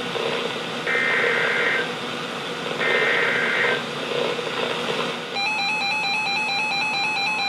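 NOAA Weather Radio SAME header: one-second bursts of warbling digital data tone, about two seconds apart, over radio hiss. About five seconds in, an electronic alert tone starts, flipping back and forth between pitches, as the receivers sound for the incoming severe thunderstorm warning.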